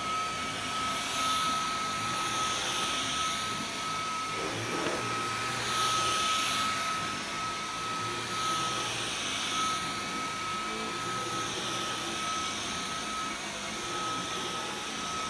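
Dyson V11 Torque Drive cordless stick vacuum running on carpet: a steady high motor whine over rushing suction that swells and fades in a slow repeating pattern as it is worked across the pile. It runs at the higher power that the auto mode picks for carpet, and it cuts off right at the end.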